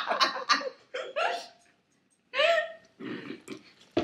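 Scattered short laughs and brief vocal noises from people, with short pauses between them.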